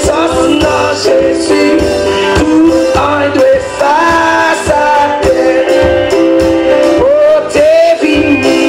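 Live gospel praise band playing: a man sings the lead into a microphone over drums, electric guitar and bass.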